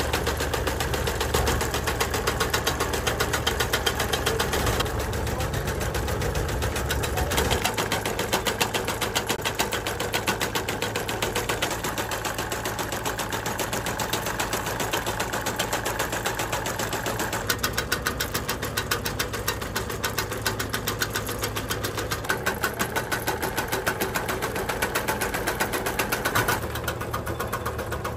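Wooden ice cream stick cutting machine running, its cutter making a rapid, even clatter over a steady electric motor hum. The low hum shifts abruptly a few times.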